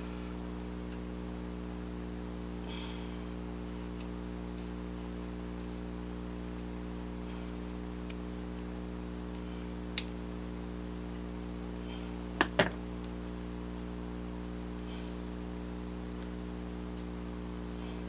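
Scissors cutting craft foam: a few faint snips, one sharp click about ten seconds in, and a louder double click a couple of seconds later. Underneath is a steady low electrical hum.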